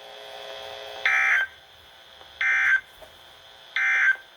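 Three short, identical data bursts about a second and a quarter apart from a NOAA Weather Radio receiver's speaker: the EAS end-of-message tones closing a severe thunderstorm warning.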